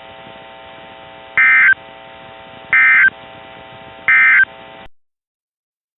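NOAA Weather Radio EAS/SAME end-of-message data tones: three short, identical, warbling digital bursts about a second and a half apart, over a steady receiver hum. The broadcast audio cuts off about five seconds in.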